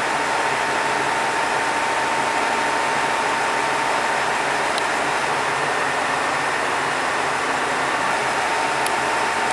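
Diesel train idling at the station platform: a steady engine hum with a thin, constant whine.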